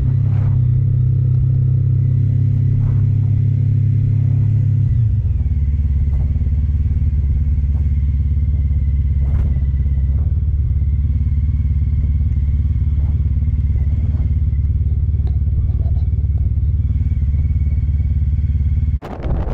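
Honda ST1300's V4 engine running as the motorcycle is ridden slowly, heard from the rider's seat. The engine note drops to a lower, steady pitch about five seconds in.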